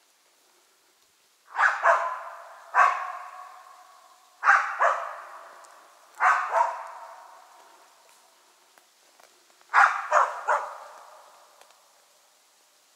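A laika hunting dog barking out of sight, about ten sharp barks in clusters of one to three, each ringing on in a long echo among the trees.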